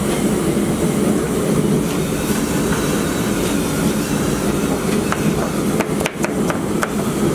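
A knife chopping leafy greens on a wooden table: a handful of sharp cuts about five to seven seconds in, over a steady low rumbling background noise.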